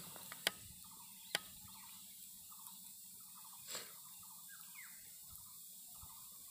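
Faint, repeated short chirps of a bird calling in the background, over a steady hiss. Two sharp clicks come within the first second and a half, and a short louder burst of noise comes a little past halfway.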